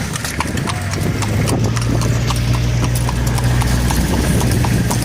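Hooves of a horse pulling a cart clip-clopping on a paved road, about three even strikes a second, over a steady low rumble that rises about a second and a half in.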